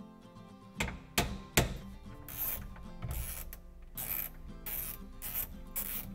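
Socket ratchet wrench worked back and forth on a bolt, a short burst of ratchet clicking on each stroke, about two strokes a second. Three sharp metal knocks come first, about a second in.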